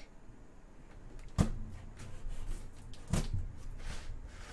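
Cardboard shipping box being handled and opened by hand: two sharp knocks, about a second and a half and about three seconds in, with fainter scraping and rustling of cardboard between them.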